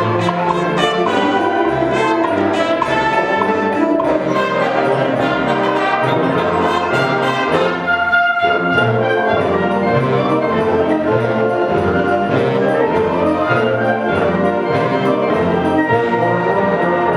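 High school concert band playing, with brass instruments to the fore over a pulsing low bass line.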